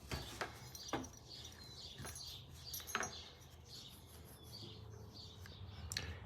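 A few light clicks and taps from small throttle-assembly parts being handled, with faint bird chirps in the background.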